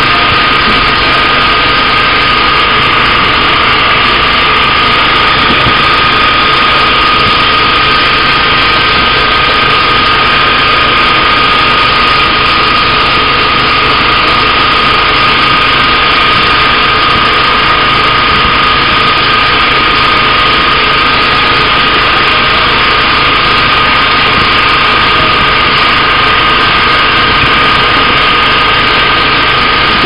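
Fishing boat's engine running steadily and loudly, a constant drone with a high whine held at one pitch throughout.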